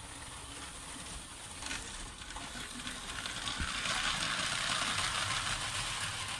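Motorised Lego train running on plastic Lego track, a steady rattling hiss of wheels and motor that grows louder from about halfway through as the train passes close by.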